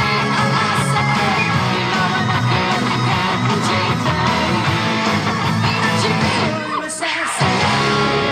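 Les Paul-style electric guitar playing a rock part along with a full band, with a steady low bass line underneath; the band sound drops out briefly about seven seconds in and comes straight back.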